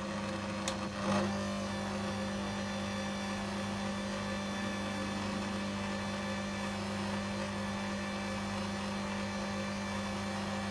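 Stand mixer's motor running steadily as its dough hook kneads bulgur dough in a stainless steel bowl, with a couple of light knocks in the first second or so.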